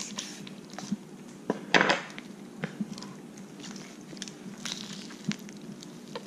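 Handling noises of a pufferfish being cut and pulled apart on a wooden cutting board: scattered small clicks and knocks of the knife and hands, with one louder knocking rustle about two seconds in, over a steady low hum.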